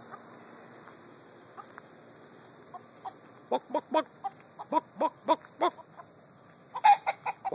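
Chicken clucking: a quick run of about eight short clucks starting about halfway through, then a louder cluster of clucks near the end.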